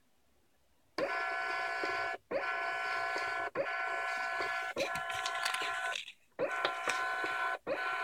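Dymo LabelWriter 450 thermal label printer running and feeding labels out. Its motor whines steadily in five runs of about one to one and a half seconds each, with short pauses between, starting about a second in.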